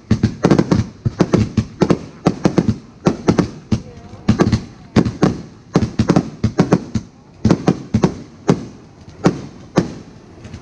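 A multi-shot consumer firework cake firing a rapid, uneven barrage of sharp bangs, several a second, thinning a little in the second half.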